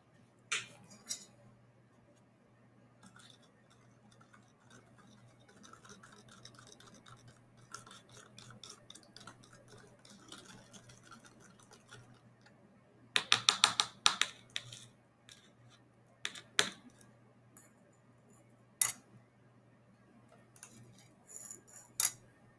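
Baking soda being stirred into water in a clear plastic cup, with soft scraping and clicking against the cup's sides and a loud run of rapid taps about halfway through. Near the end the plastic cup clicks down onto a digital kitchen scale.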